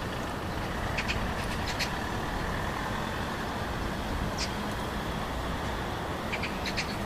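Steady low background rumble of distant road traffic. Short, high bird chirps come in small clusters about a second in, near the middle and again near the end.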